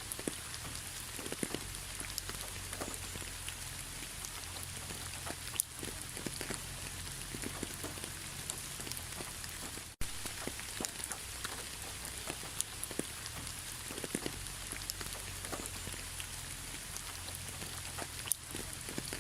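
Steady rain falling, with many separate drops ticking on a surface over the even hiss and a low rumble underneath. The sound cuts out for an instant about halfway through.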